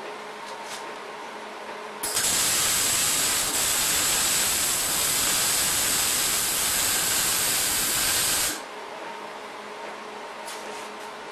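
Wire-feed (MIG) welder arc welding on a steel mower deck: a loud, even crackling hiss that starts abruptly about two seconds in, runs about six and a half seconds and cuts off suddenly.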